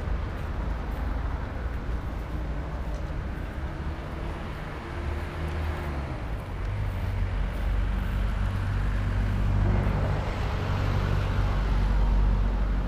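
Wind buffeting the camera's microphone: a low, uneven rumble with a hiss over it, growing louder in the second half.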